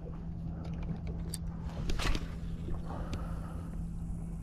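Boat motor humming steadily at a low pitch, with a few light clicks over it.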